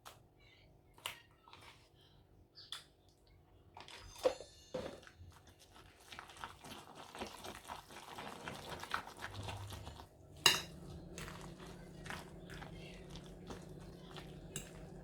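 Metal spoon clinking and scraping against a mixing bowl as spoonfuls of crème fraîche are scooped into the mixture, with scattered knocks and a sharper clink about ten seconds in. A faint steady hum comes in after that clink.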